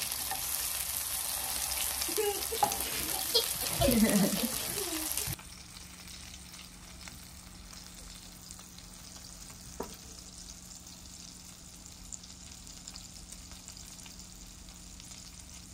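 Donggeurangttaeng (meat patties, some dipped in egg) frying in oil in a pan, a steady sizzle. For the first five seconds it is louder, with a few brief voice sounds over it. Then it drops suddenly to a quieter, even sizzle with one small click.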